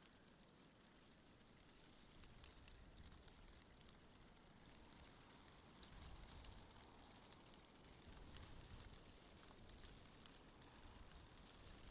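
Faint wind ambience: a soft, steady hiss with low gusts that swell about six seconds in and again near the end, and scattered light ticking.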